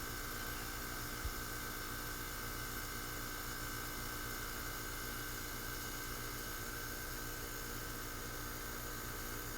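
R-410A heat pump outdoor unit running steadily in heating mode, a constant hum of compressor and fan with a few steady tones over a hiss.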